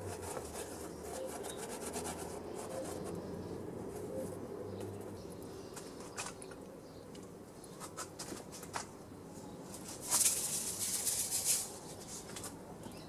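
Pita bread rubbed and shifted on hot ash and embers, with light crackling from the coals and a louder hiss lasting about a second and a half near the end.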